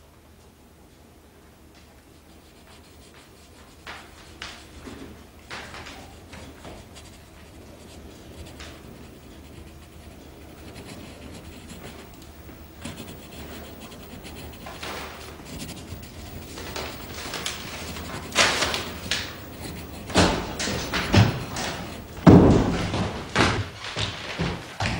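Scattered knocks, rustles and shuffling in a room, growing louder and busier, then several sharp thumps and a door slam in the last few seconds as someone walks in.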